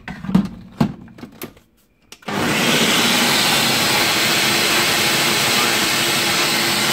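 A few knocks and clicks, then about two seconds in a Ninja Auto-iQ countertop blender starts and runs steadily at full speed, loud, blending frozen banana, berries and oat milk into a smoothie.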